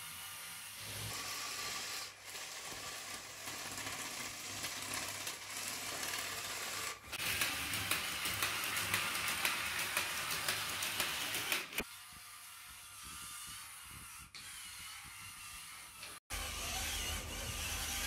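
Motorised LEGO Technic robots running: small electric motors whirring while plastic gears, legs and wheels click and rattle over a wooden floor. The sound changes abruptly several times as one model gives way to another, and is loudest and busiest about halfway through, while a multi-legged walker scuttles along.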